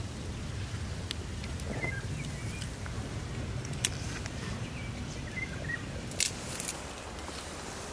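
Dry brushwood being gathered: a few sharp cracks of dry twigs, the loudest just before the middle and a cluster near the end, over a steady low rumble, with a few short bird chirps.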